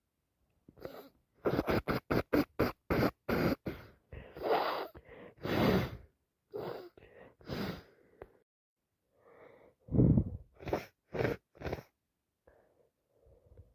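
Person with a heavy cold in a sneezing fit: a quick run of short, sharp sneezes, then longer gasping breaths, and about ten seconds in another loud sneeze followed by three quick ones.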